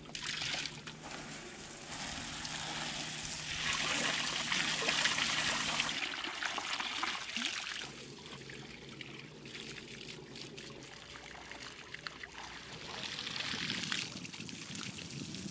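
Water spraying from a garden hose, rinsing salt off a sailboat's deck and hull, louder for a stretch a couple of seconds in; near the end water runs from a hose into the boat's deck fill as the water tanks are filled.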